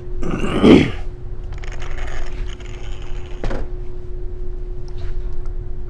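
Handling noise from an RC monster truck's plastic body and chassis being turned over by hand: a short scraping rustle about half a second in, faint rubbing after it, and a single click about three and a half seconds in, over a steady low hum.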